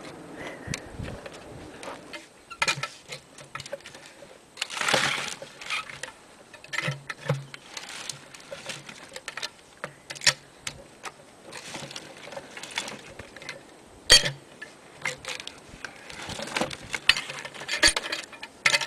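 Scattered metallic clinks and knocks from handling steel sawmill log-handling gear, with a brief scraping rush about five seconds in.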